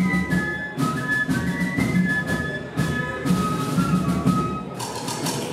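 A flute band playing a tune, several flutes together on the melody with drums keeping the beat.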